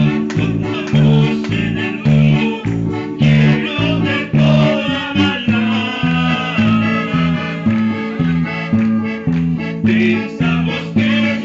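Music of a worship song: a guitar strummed in a steady rhythm with repeating bass notes, and a higher melody line coming in over it about three seconds in.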